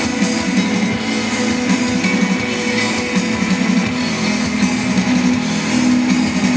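Live instrumental post-rock band: layered electric guitars with a drum kit, dense and sustained.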